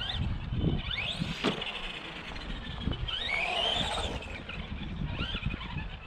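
Arrma Granite 4x4 Mega RC truck's electric motor whining up and down in pitch as the throttle is worked, with the longest rise about three to four seconds in, over a low rumble. A brief sharp knock about one and a half seconds in.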